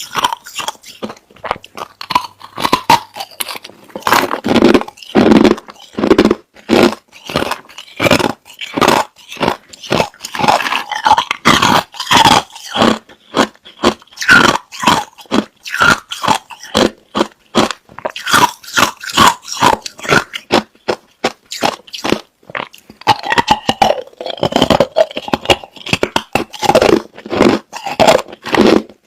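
Clear, hard crushed ice being chewed close to the microphone: a steady run of loud, sharp crunches, several a second.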